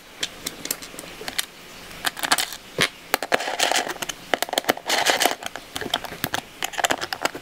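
Screws being turned into the plastic airbox of a Rotax Max kart engine with a hex driver: irregular small clicks and brief scraping of the tool and screws against the plastic.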